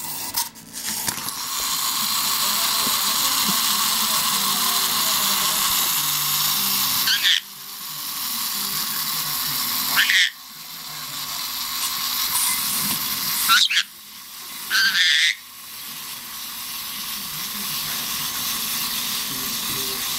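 Wind-up Santa toy's clockwork mechanism whirring steadily, broken four times by short sharp squawks from a black-headed caique.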